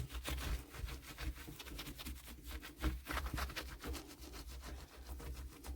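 Cloth wiping and scrubbing a door's surface in a quick run of short rubbing strokes, cleaning off dirt left under an old door handle.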